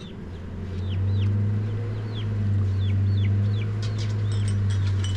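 Chickens cheeping: short falling calls repeating every half second or so over a loud, low, steady hum.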